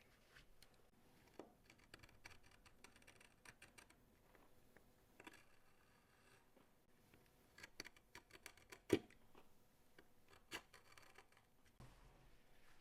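Faint cutting and handling of leather with a knife: small scratchy strokes and light clicks in two clusters, with one sharper click near the middle.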